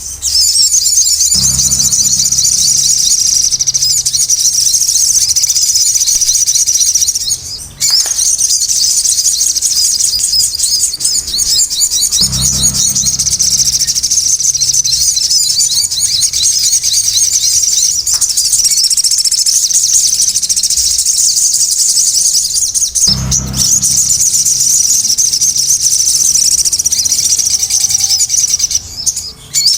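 Sogon birds singing in a busy, continuous stream of rapid high chirps and trills, broken by two short pauses. A low thud recurs about every eleven seconds.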